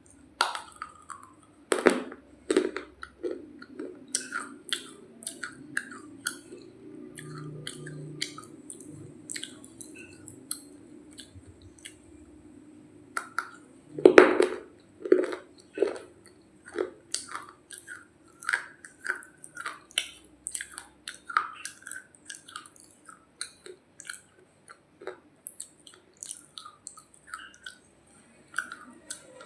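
Close-up biting and chewing of a hard, dried clay roti: a run of sharp, dry crunches, with the loudest bites about two seconds in and again halfway through.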